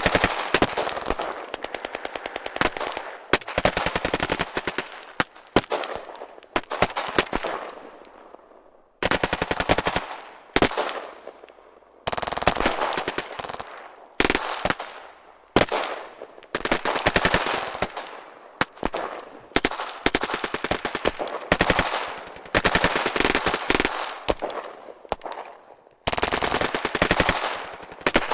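Automatic gunfire of a war-scene gunfight: repeated bursts of rapid shots, each burst trailing off in an echo before the next begins.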